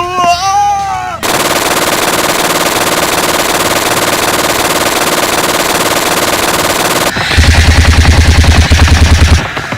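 Automatic-gunfire sound effect: a long, dense burst of rapid machine-gun fire. It gives way to a heavier burst of about ten shots a second with a deep low thud in each, which cuts off near the end.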